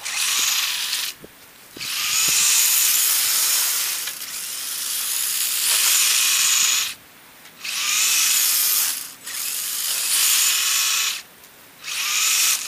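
Radio-controlled plow truck's electric motor and gears whining high in runs of one to several seconds, cutting out briefly between runs as the truck stops and starts.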